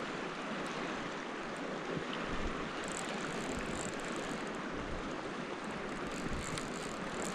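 Creek water rushing steadily, the even hiss of a tributary stream running high.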